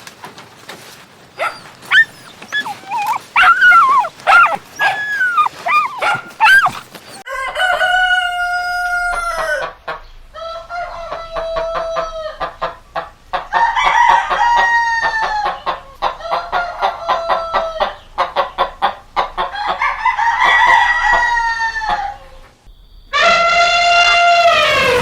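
Chickens making short, quick clucking calls, then a rooster crowing about six times in a row, each crow about two seconds long, holding its pitch and dropping at the end.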